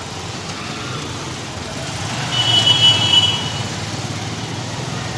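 Street traffic: a steady rumble of passing vehicles that swells about two seconds in, with a brief high-pitched tone lasting about a second.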